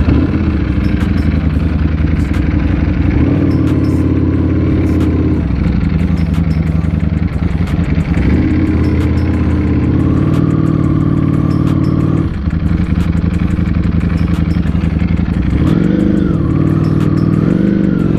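Ducati Panigale V4 S's V4 engine running as the bike pulls away at low speed, the revs stepping up and down. There is a brief drop about twelve seconds in, and the revs rise and fall again near the end.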